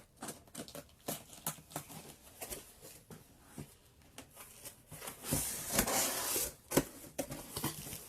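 Cardboard shipping box being opened by hand: scattered rustles and light taps of cardboard and packing material, with a louder rustling stretch about five seconds in and a sharp knock just after.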